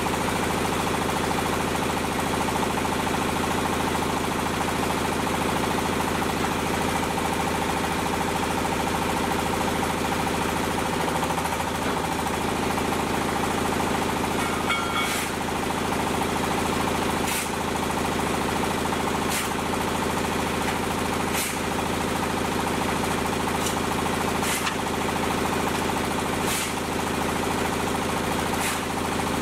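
Diesel engine running steadily, driving the hydraulic pump of a concrete hollow block machine; its pitch wavers briefly a little before halfway. In the second half sharp knocks come about every two seconds.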